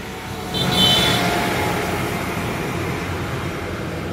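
A motor vehicle's engine running close by, swelling about half a second in and then slowly easing off, as if pulling away. There is a brief high-pitched squeal as it swells.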